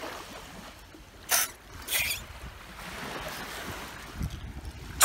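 Wind rumbling on the microphone over faint surf at the shore. Two short, loud hissing bursts come about a second and a half and two seconds in.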